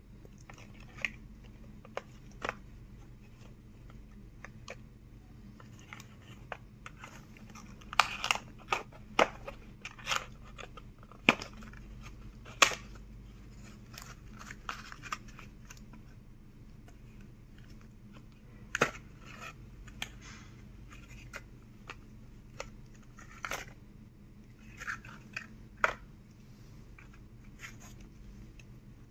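A cardboard condom box being opened and handled with latex-gloved hands, and a strip of plastic-foil condom packets pulled out: scattered sharp clicks, taps and short crinkles, busiest about a third of the way in and again from about two thirds through. A low steady hum runs underneath.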